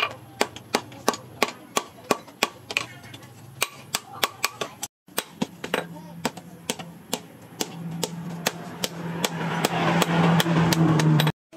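Hand hammer striking a red-hot steel motorbike sprocket on a steel post anvil, sharp blows about two to three a second, forging a section of the sprocket out into a blade. In the second half a steady low hum with a rising hiss grows under the blows and is loudest near the end.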